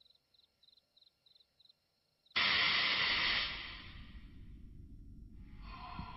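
A cricket chirping, about three chirps a second, then a sudden loud rush of hissing noise just over two seconds in that fades into a low rumble, with a higher rushing sound rising again near the end.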